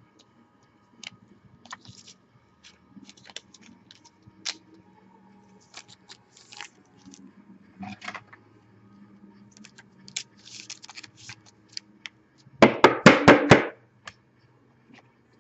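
Baseball cards and plastic card sleeves being handled: scattered light clicks and rustles. Near the end comes a loud, fast clatter of about six knocks lasting about a second.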